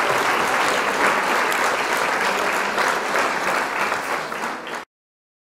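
Crowd applause, a dense, even clatter of clapping, that cuts off suddenly near the end.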